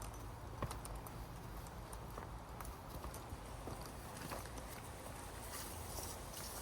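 Footsteps and scattered sharp clicks on a hard path, over a steady low rumble.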